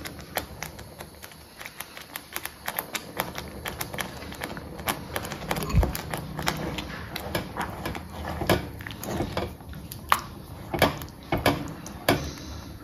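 A metal cooking utensil tapping and scraping against a pan, a quick, irregular run of small clicks over a low steady background.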